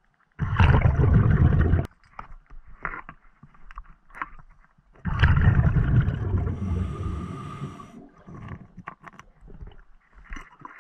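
Scuba diver breathing through a regulator underwater: two loud rushes of exhaled bubbles, about half a second in and again about five seconds in, the second fading slowly with a thin hiss near its end. Small clicks and taps between them.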